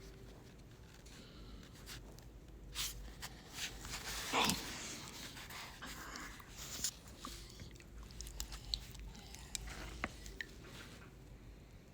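Colombian fino hound puppy chewing and mouthing, with scattered small clicks and ticks and one short, louder sound about four and a half seconds in.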